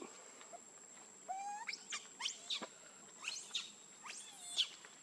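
Young pig-tailed macaques squeaking: a run of short, high-pitched sweeping squeals, roughly one every half second from about a second in.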